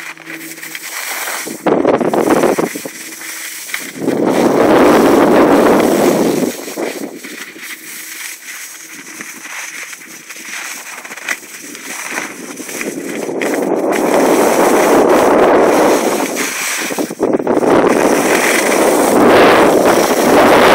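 Wind rushing over a phone's microphone and skis hissing and scraping over packed snow while skiing downhill. It comes in several loud surges with quieter stretches between.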